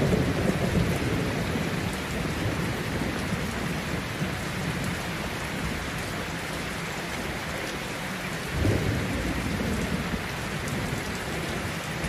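Steady heavy rain with thunder: a low rumble fades away over the first seconds, and another short rumble swells about eight and a half seconds in.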